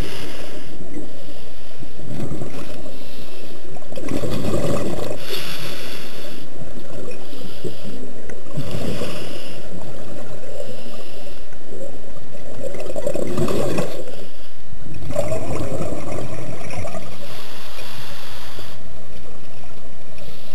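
Scuba diver breathing through a regulator underwater: bursts of exhaled bubbles gurgling, alternating with the hiss of each inhalation, about one breath every four seconds.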